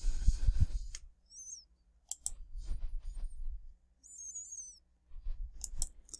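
A few sharp, scattered clicks of a computer mouse over a low steady hum, with two faint short high chirps between them.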